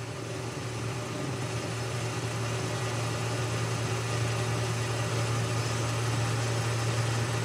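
Boxford metal lathe running, a steady hum with a light cutting noise over it as a carbide-insert tool turns the outside of a metal bar to true it to the bored hole. The sound grows slowly louder through the stretch.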